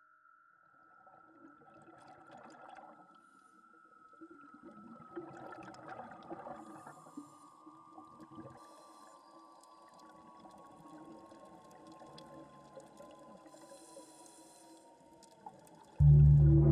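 Ambient underwater soundtrack: a long, thin tone gliding slowly down in pitch over a watery, bubbling wash. Near the end a loud, low, ringing struck note comes in suddenly.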